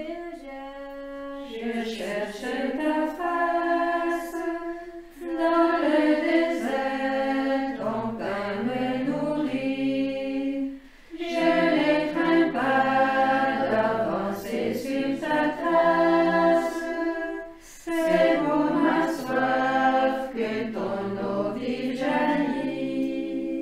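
A choir singing unaccompanied in several parts, held chords moving in phrases with three short breaks between them.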